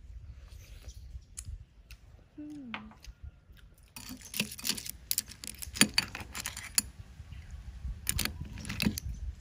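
Clam shells clicking and a metal spoon clinking against a glass bowl as cooked clams are picked apart, with a dense run of sharp clicks from about four seconds in. A short falling 'mm' from a person comes before that, about two and a half seconds in.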